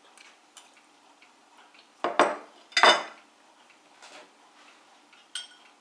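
Spoon and ceramic dishes clattering: light clinks of cutlery on a plate, with two louder, short clatters of tableware about two seconds in and again a second later.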